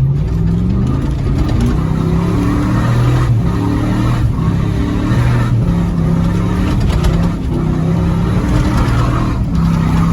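Vehicle engine revving up and easing off again and again as it is driven hard, its pitch stepping up and down, with a rushing noise over it.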